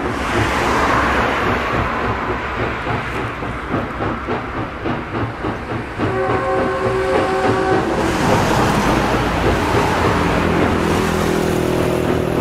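SY-class 2-8-2 steam locomotive working uphill, its exhaust beating steadily, with a steam whistle sounding for about two seconds, several notes at once, midway through.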